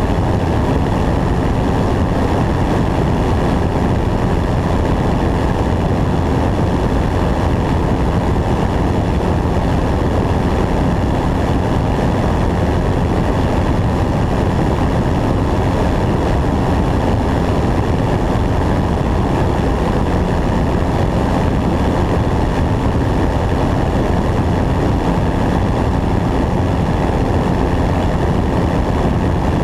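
A light propeller airplane's engine and propeller running steadily in flight, heard mixed with wind rushing over a wing-mounted camera.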